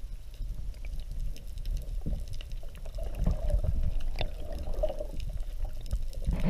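Water sloshing and gurgling around a GoPro held underwater in its waterproof housing. The sound is muffled and mostly a low rumble, with a few faint ticks.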